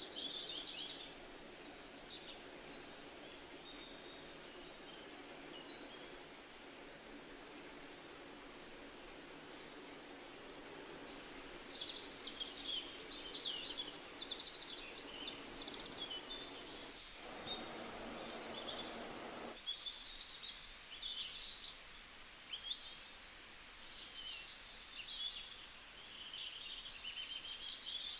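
Small birds chirping and twittering, many short calls overlapping over a faint steady hiss. A brief rush of noise lasts about two seconds a little past the middle.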